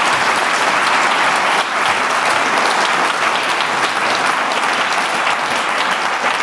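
Audience applauding: a steady wash of many hands clapping that eases slightly near the end.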